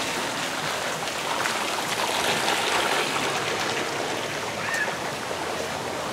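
Splash-pad water features running: a bubbling geyser jet in a shallow pool and small jets spattering onto wet pavement. They make a steady splashing hiss that swells slightly around the middle.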